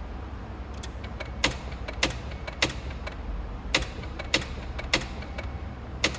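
Sharp mechanical clicks from a 2022 Hyundai Tucson that will not crank or start, coming in quick runs of three about half a second apart with short pauses between, over a low steady hum.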